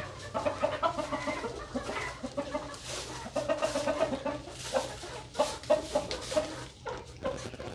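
Laying hens clucking in short, repeated calls, with rustling and scratching in the straw bedding.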